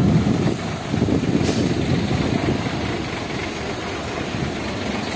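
Hino 500 dump truck's diesel engine running, louder in surges over the first two seconds and then steady.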